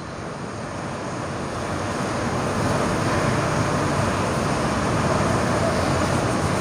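Steady rushing background noise, growing louder over the first three seconds and then holding.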